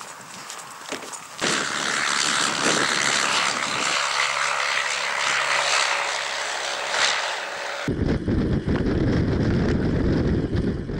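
A light propeller aircraft's engine running steadily, coming in abruptly about a second and a half in. Near the end it cuts to a heavy low rushing noise.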